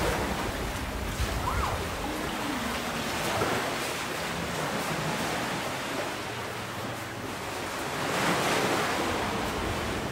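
Small sea waves washing onto a sandy beach, a steady wash that swells louder about eight seconds in.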